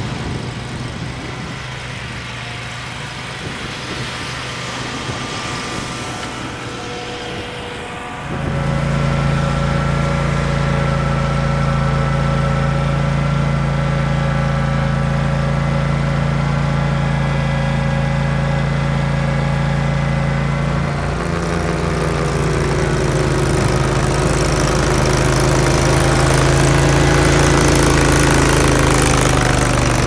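Engine of a Ventrac SSV stand-on sidewalk snow vehicle running steadily while it plows snow. About eight seconds in it becomes suddenly louder and closer. Around two-thirds of the way through its note changes and it grows a little louder.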